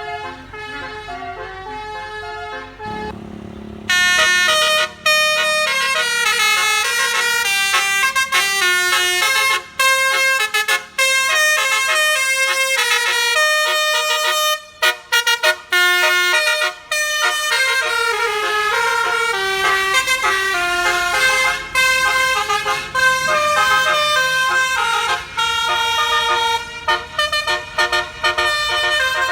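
Bus 'telolet basuri' musical air horns, a set of trumpet horns playing a rapid melody of changing notes with short breaks between phrases. Softer at first, then loud from about four seconds in.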